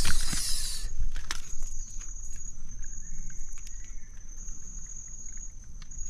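A large string-tied mud crab being handled over shallow water: a short hiss in the first second, then faint scattered clicks, over a steady high thin whine.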